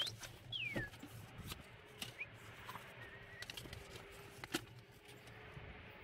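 Faint clicks and knocks of a spray can and loose items being handled, with a few short, high, chirp-like squeaks in between.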